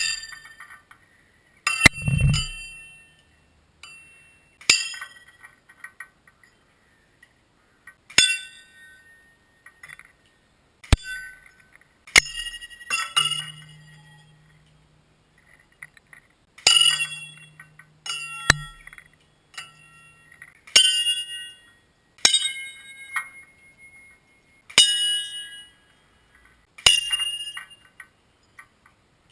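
Suspended hard-drive platter struck over and over, about a dozen sharp hits a couple of seconds apart, each ringing on briefly at several high pitches like a small bell.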